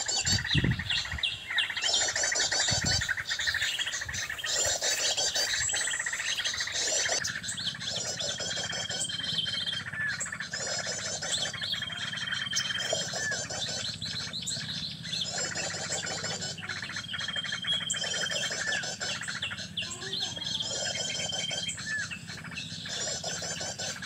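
Sunbird calling: high, rapid twittering phrases repeated about every two seconds, with a short thin whistled note joining each phrase from about nine seconds in. The calls serve as the lure for trapping male sunbirds.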